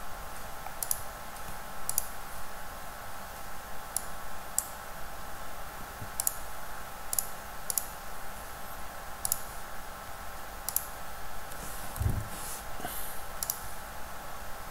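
Computer mouse button clicking, about a dozen sharp clicks at uneven intervals. Under them runs a faint steady whine, and a soft low thump comes about 12 seconds in.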